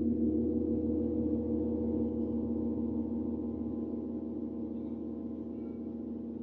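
A large gong ringing out from a single stroke, its tones slowly dying away.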